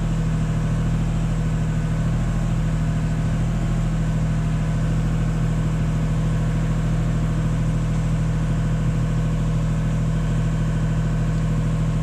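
Engine of the overhead-line work vehicle idling steadily under the aerial platform, a constant low hum that does not change.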